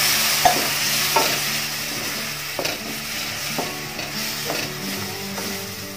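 Onion masala sizzling in a frying pan with hot water just added, the sizzle slowly dying down. A spatula stirs and scrapes the pan about once a second.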